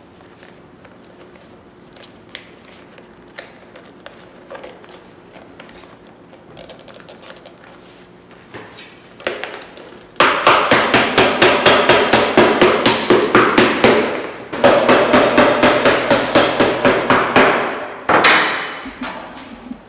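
Cobbler's hammer rapidly tapping a leather insole on a shoe last held on a last stand, in two quick runs of about five blows a second that start about halfway in, with a short break between and a last single knock near the end.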